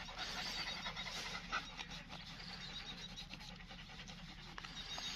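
Greyhound panting softly while it is rubbed down by hand.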